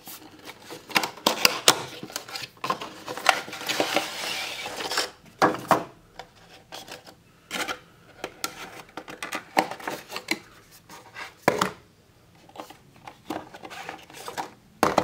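Cardboard gift box and clear plastic pen case being handled during unboxing: scattered clicks and taps, with a rustling slide of cardboard and plastic a few seconds in.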